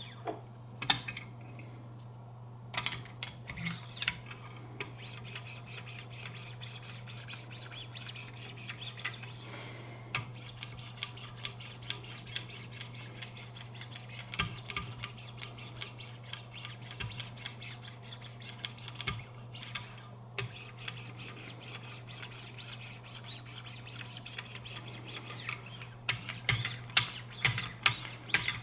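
9-micron lapping films on Wicked Edge sharpener paddles stroked along a Benchmade 725 Kodiak Skinner's blade edge: a light rubbing scrape, stroke after stroke, the polishing stage of sharpening. The strokes come faster and louder near the end, over a steady low hum.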